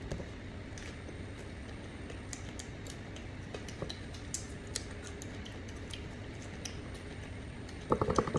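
Scattered light clicks and ticks of food and utensils being handled while eating, over a steady low hum. A quick cluster of louder knocks comes near the end.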